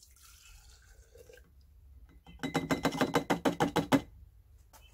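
Acetone-and-Varidol mixture poured from a plastic measuring cup into a glass jar: a faint trickle at first, then about halfway through a quick run of glugs, about eight a second, lasting roughly a second and a half.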